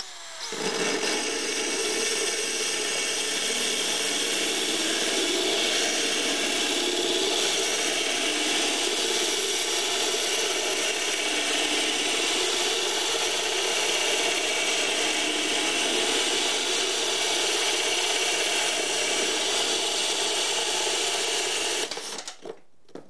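Cordless drill with a RotoZip tile-cutting bit boring through a wall tile: a steady grinding sound that runs for about twenty seconds. It stops suddenly near the end as the hole is finished.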